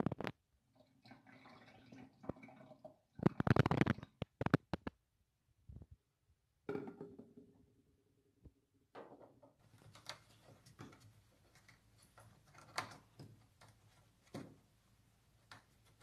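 Water poured from a plastic jug into the fill opening of a De'Longhi tabletop dishwasher's water tank, gushing and gurgling, with clunks of the plastic jug. In the second half come light clicks and taps of plastic at the opening.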